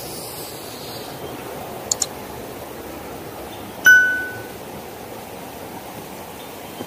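Like-and-subscribe overlay sound effect: a quick double mouse click about two seconds in, then a single bright bell ding near the middle that rings out briefly. Beneath it runs a steady rush of flowing river water.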